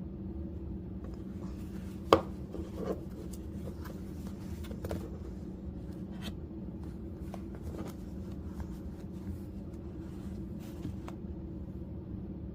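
Handling noises: scattered light clicks and rubbing, with one sharper knock about two seconds in, over a steady low hum.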